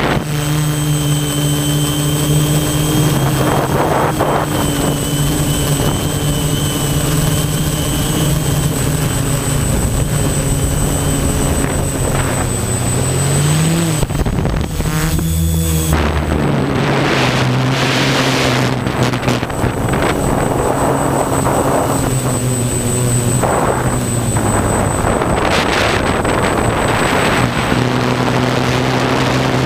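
Multirotor drone's electric motors and propellers buzzing in flight, heard from the camera mounted on the drone, with wind noise. The pitch shifts as the throttle changes, rising about twelve seconds in and briefly dropping a couple of seconds later before settling back.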